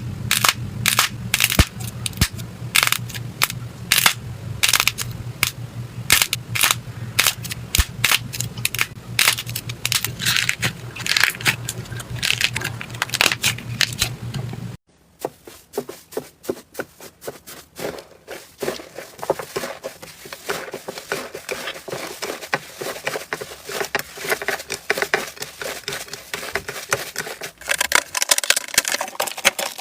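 Slime being squeezed and worked by hand, giving rapid, irregular crackles and pops. A low hum sits under the first half, and the sound cuts abruptly to another slime clip about halfway through.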